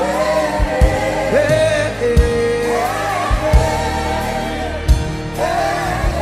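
Gospel worship music: voices singing a slow praise chant over a band with a steady low bass and occasional drum hits.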